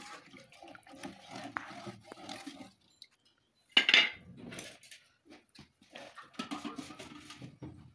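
Plastic ladle stirring and knocking in an aluminium cooking pot of porridge, faint and scattered, for the first few seconds. A short, loud animal call about four seconds in.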